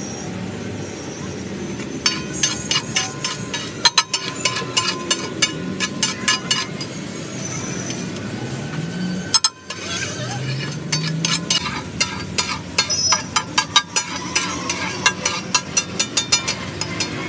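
Metal spatula clanging rapidly against a flat tawa griddle, several strikes a second, as rice is tossed and mixed for tawa pulao, over street traffic and voices. The clanging starts about two seconds in, pauses briefly about halfway, then resumes.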